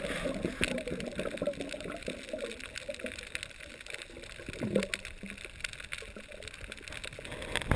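Underwater ambience picked up by a camera below the surface: a low watery rush with many small scattered clicks and crackles, and a short loud burst at the very end.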